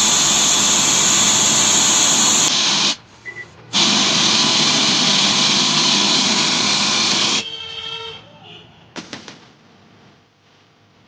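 Loud FM radio static hissing from the MZ sound bar's speaker in radio mode. It cuts out for under a second about three seconds in, then dies down after about seven seconds with a few faint tones and clicks.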